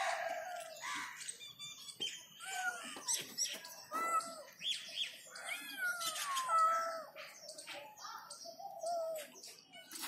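Kittens mewing over and over: short, high-pitched mews that slide down in pitch, coming several a second at times.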